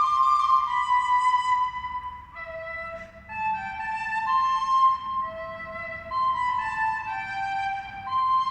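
Instrumental music: a slow melody of held high notes on a flute-like wind instrument, softer for a moment about two to three seconds in.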